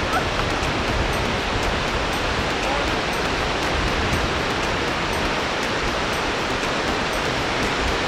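Steady rush of sea surf breaking on a sandy beach.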